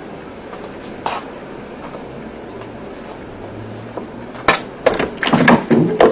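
Steady background hiss, then from about four and a half seconds in a quick series of sharp clicks and knocks as a door handle and latch are worked and the door is pulled open.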